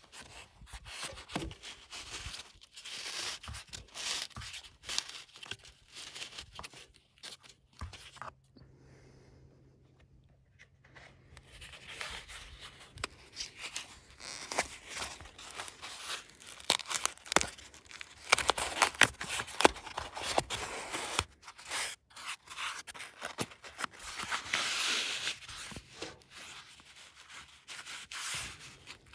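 Irregular scraping and rubbing with many sharp clicks, from hands-on work with corrugated steel roofing panels. It goes quieter for a few seconds about eight seconds in.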